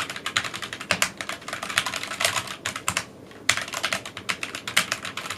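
Typing on a Tecware Phantom Elite 87-key mechanical keyboard with Gateron Black linear switches and ABS keycaps: a fast, uneven run of keystroke clicks, with a brief pause about three seconds in.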